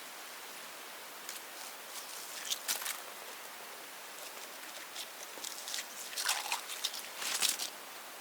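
Irregular crunching and rustling, in short clusters a little after one second, near three seconds and again around six to seven and a half seconds in, over a steady hiss.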